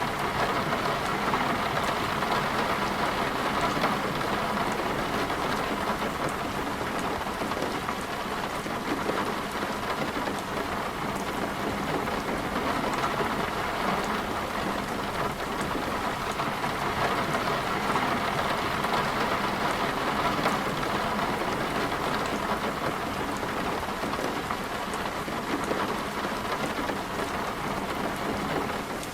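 Heavy rain pouring steadily, swelling and easing in slow waves, in a thunderstorm.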